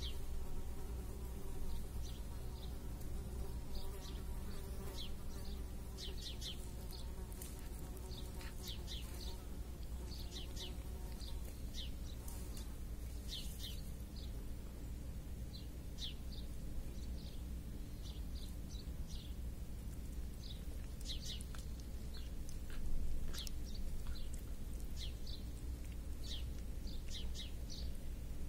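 A flying insect buzzing with a steady drone for the first half, then gone. Short high chirps of small birds are scattered throughout, over a low steady rumble.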